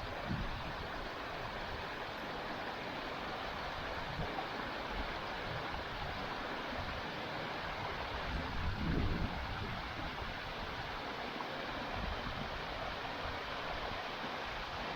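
Steady rushing of water from a small waterfall on a moorland stream, with a few low wind buffets on the microphone, the strongest about nine seconds in.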